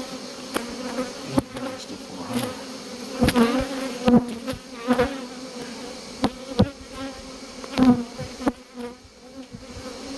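Honeybees buzzing around an opened hive in a steady hum. The buzz swells sharply for a moment several times as single bees fly close past the microphone.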